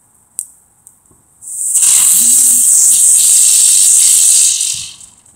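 Ground-flower spinner firework hissing loudly as it spins and throws sparks, starting about a second and a half in and dying away near the end. A short click comes just before it.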